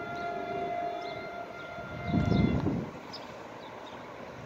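NJ Transit train horn sounding a long held blast as the train approaches the grade crossing. A brief loud rush of low noise comes about two seconds in.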